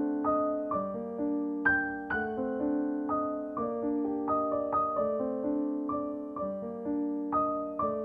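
Background piano music: a gentle melody of struck notes, each ringing out and fading, with soft chords underneath.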